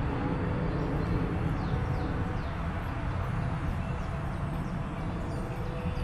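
Steady low outdoor rumble, with faint, high, falling chirps of a bird now and then from about a second and a half in.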